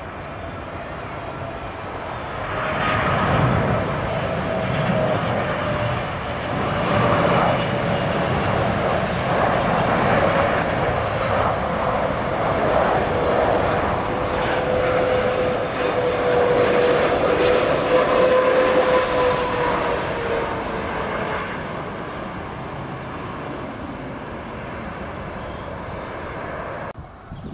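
Twin-engine Boeing 777 airliner landing: a steady jet engine roar with a thin whine that slides slowly down in pitch, growing louder as the aircraft passes and touches down, loudest about two-thirds of the way through, then fading.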